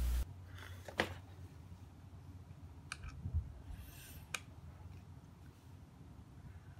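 Light handling noise of fingers on a motorcycle's plastic side cover: a few sharp clicks and a short scrape, on a faint background. A low hum cuts off suddenly a moment in.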